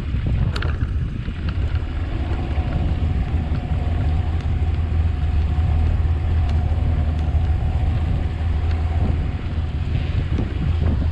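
Small fishing boat's engine running steadily under way, a constant low hum, with wind buffeting the microphone.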